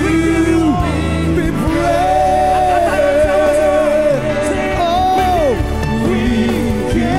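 Live worship band and singers performing a praise song, with long sung notes that waver slightly over keyboards and a steady low bass line.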